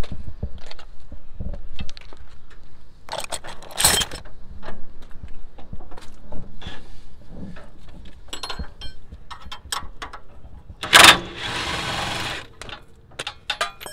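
Metal clinks and knocks of wrenches working on the suspension bolts of a car's lower control arm. About eleven seconds in there is a loud bang followed by a second or so of rushing noise.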